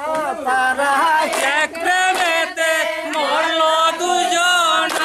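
A man's voice singing or chanting in long, held, wavering notes, with short breaks between phrases.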